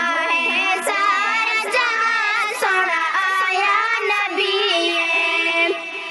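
A young girl's voice singing a Saraiki naat, a devotional song in praise of the Prophet Muhammad, in a flowing, ornamented melody with a long held note near the end.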